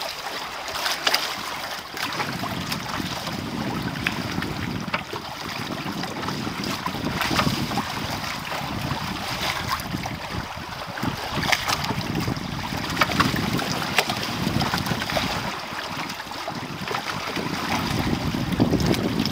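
Water rushing and splashing along the hulls of a small sailing trimaran under way, with wind buffeting the microphone and scattered sharp ticks.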